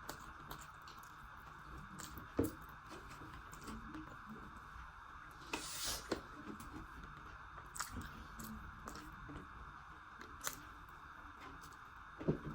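Quiet eating sounds: soft chewing and mouth noises with scattered small clicks and a brief rustle about six seconds in, over a faint steady hiss.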